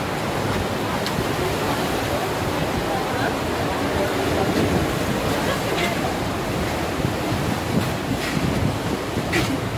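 Sea surf breaking on the rocks below a cliff: a steady rushing wash of waves, with wind buffeting the microphone.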